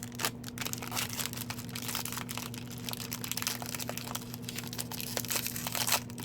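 Crinkling and crackling of a hockey card pack's wrapper being opened and handled, with a louder crackle near the end.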